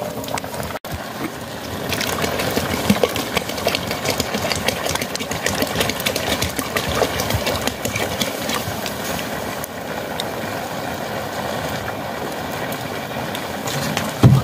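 Large pot of rice boiling hard over an open wood fire: a steady bubbling rumble with the fire crackling, and a short thud near the end.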